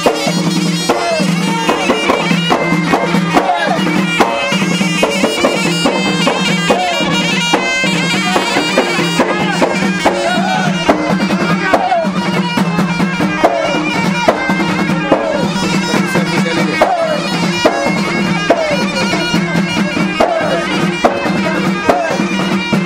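Moroccan alaoui folk music: a reedy ghaita shawm playing a wavering, looping melody over a steady held low note, with frame drums beating a steady rhythm.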